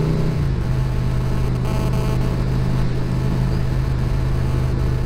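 Motorcycle engine running at a steady cruising speed. Its note drops slightly about half a second in, then holds steady.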